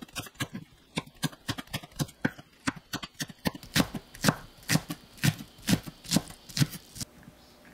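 Chef's knife slicing a green onion on the diagonal on a wooden cutting board: a run of crisp knife taps on the board. The taps come quickly at first, then slow to about two a second, and stop near the end.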